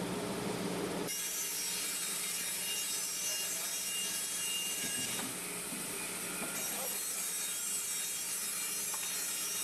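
Horizontal band resaw ripping a wooden board as the conveyor feeds it through the blade: a steady sawing hiss that turns brighter about a second in and then holds even.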